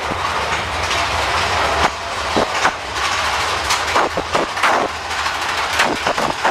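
Theme-park ride train rattling along its track through a dark tunnel: a steady rushing rumble broken by many quick clacks and knocks.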